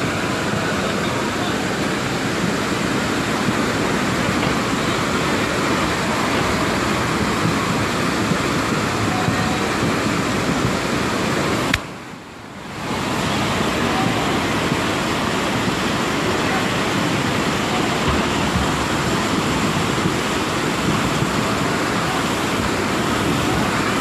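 Muddy floodwater rushing in a swollen river, a loud steady rush of churning water that cuts out for about a second near the middle.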